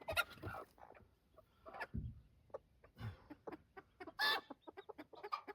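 Broody hens clucking and squawking in short bursts as they are handled and put into a carrier, with frequent small knocks and rustles and a couple of low thumps. The loudest call comes about four seconds in.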